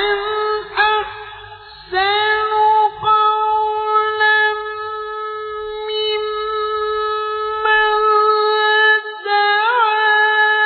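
Male Quran reciter chanting in murottal style. After a short phrase he holds one very long, steady note from about two seconds in, prolonging a vowel on a single breath, with a brief ornamental turn near the end.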